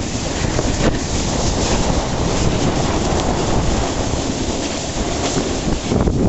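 Wind rushing over the microphone while sliding down a snow slope, a steady rumbling hiss with the scrape of riding over packed snow underneath.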